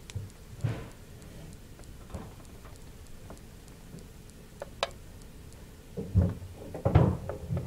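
A teddy bear hamster nibbling broccoli and shuffling in its cage: soft, scattered crackles and small clicks, with a few louder low bumps and rustles near the end.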